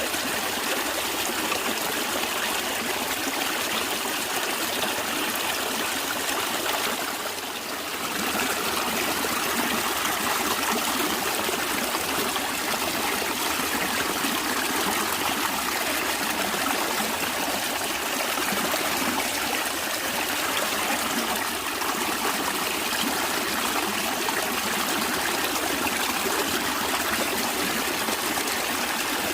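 Natural stream of water flowing and trickling steadily, with a brief dip in level about seven seconds in.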